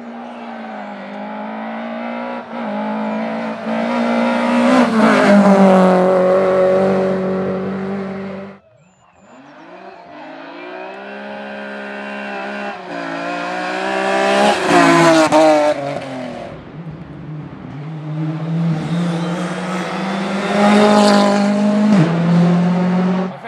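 Rally cars driven flat out on a special stage, three separate passes in a row. Each engine revs high and shifts gear as it closes in, is loudest as it goes by, then pulls away. The first pass is cut off abruptly about eight and a half seconds in.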